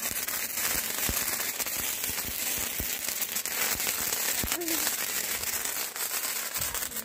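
Several hand-held sparklers burning at once: a steady fizzing hiss dotted with many small sharp crackles.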